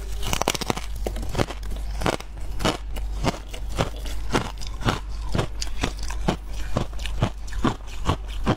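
A person chewing a chunk of freezer frost up close to a clip-on microphone: squeaky crunches in a steady rhythm, about three a second.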